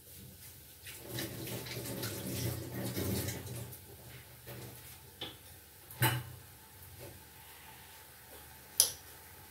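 Muffled low kitchen background noise for a couple of seconds, then two sharp clicks of kitchen items, one about six seconds in and a louder one near the end.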